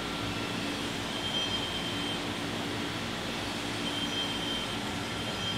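Steady hum of machinery running in a saw-sharpening shop, with a faint high whine that comes back about every two and a half seconds.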